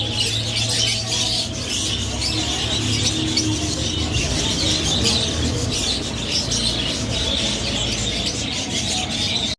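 A flock of small birds chirping and chattering all at once in a dense, continuous twitter, over a steady low hum.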